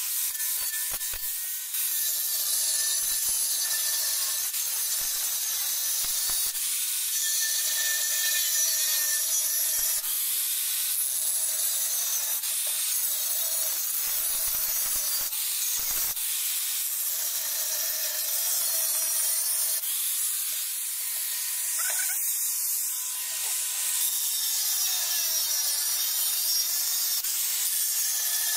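Electric angle grinder with an abrasive cutting disc cutting slots into a cement shell, a steady gritty grinding hiss over the motor's whine. Near the end the motor's pitch sags for a moment as the disc bears into the cut.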